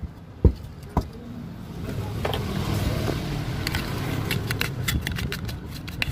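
Two sharp knocks on the bare steel stator of an electric motor, then a stiff brush scrubbing around its empty winding slots with rapid scratchy clicks, over a low steady rumble.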